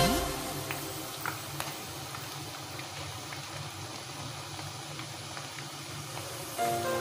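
Battered chicken pieces frying in hot oil, a steady sizzle with a few faint ticks. Background music fades out just after the start and comes back near the end.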